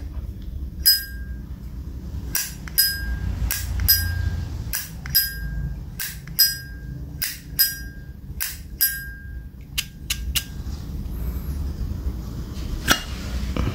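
Zippo lighter lid flicked open and snapped shut again and again: sharp metallic clicks, each with a brief ring, about twenty in ten seconds, thinning out near the end.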